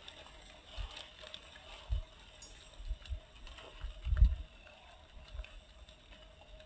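Faint outdoor background with a thin steady tone, broken by a few short, low thumps, the loudest about four seconds in.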